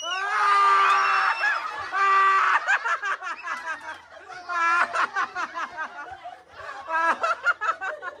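A group of people laughing and giggling, with high-pitched shrieks in the first couple of seconds.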